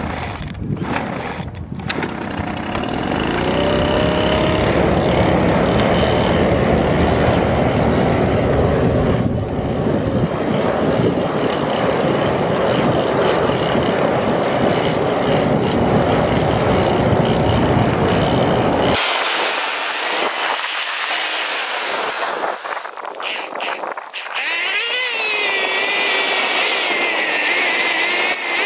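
Gas leaf blower's small engine running, forcing air into a wood fire in a fire-brick forge; its pitch climbs over the first few seconds. About two-thirds through, the sound changes abruptly to a thinner, higher engine whine whose pitch wavers.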